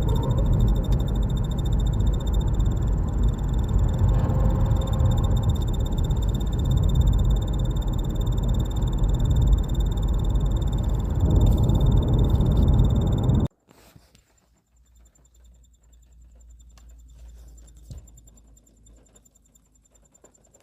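Inside a moving BMW G30, steady road and engine rumble with a recurring squeak. About 13 seconds in it cuts to the same car parked with its engine off after a drive, where only a faint low hum and occasional small squeaks and ticks remain.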